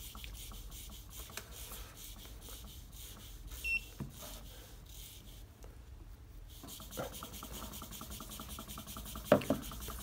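Faint rubbing and scattered light clicks from hands turning the CD flywheel of a homemade alpha Stirling engine while it warms up. A short high beep about four seconds in, and two louder knocks near the end.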